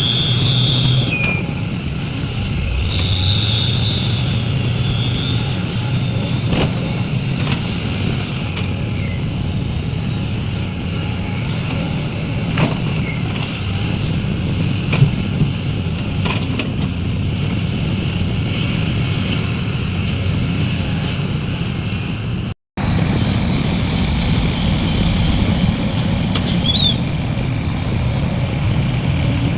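Heavy diesel earthmoving machinery, an excavator loading dump trucks, runs steadily. A high whine comes and goes in the first few seconds, and a few sharp knocks are scattered through. The sound cuts out for a moment about 23 seconds in.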